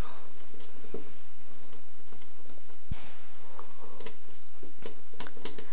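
Faint light clicks and ticks of hands working a rubber timing belt and small metal fittings into the corner of an aluminium extrusion frame, the clicks coming more often in the last couple of seconds, with one soft low thump about three seconds in.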